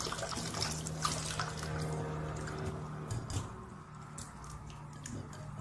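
Kitchen tap running into a bowl of hard-boiled eggs in a stainless steel sink, stopping about two seconds in. After that come drips and small splashes as the eggs are moved about in the cold water.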